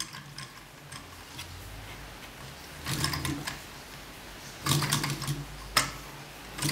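Light mechanical clicks and rattles from a homemade gamma Stirling engine's wire connecting rods and glass-tube power piston as the mechanism is worked by hand with the air intake blocked, testing the piston's seal. The clicks come in clusters about three seconds in and around five seconds, with one sharp click shortly before the end.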